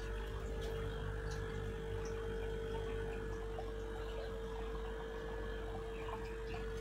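Aquarium pump humming steadily: a constant low drone with one steady tone above it.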